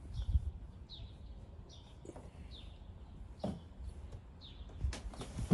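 A small bird chirping repeatedly: short, high, falling chirps roughly once every second, over a low rumble.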